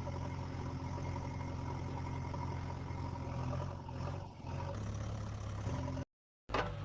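Engine-like drone running steadily at an idle-like pitch that shifts slightly about four and a half seconds in, then cuts out abruptly for half a second near the end before resuming.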